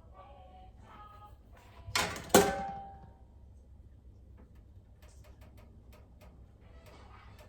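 Cookware clanking: two sharp metal hits about half a second apart, about two seconds in. The second hit is the louder one and rings briefly before dying away.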